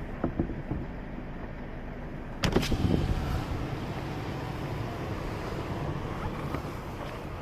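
Steady low rumble of a car engine left idling, with wind noise on the microphone, broken by one sharp clack about two and a half seconds in.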